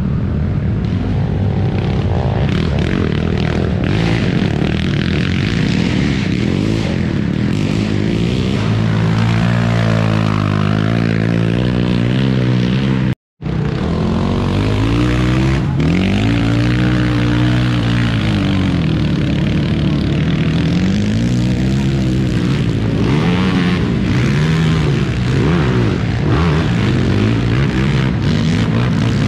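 Racing quad (ATV) engines revving, their pitch rising and falling again and again as the riders accelerate and back off. The sound cuts out for a moment about thirteen seconds in.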